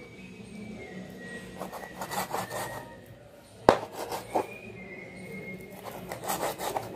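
Kitchen knife slicing raw beef on a plastic cutting board: bursts of short cutting and scraping strokes, with one sharp knock of the blade on the board about halfway through.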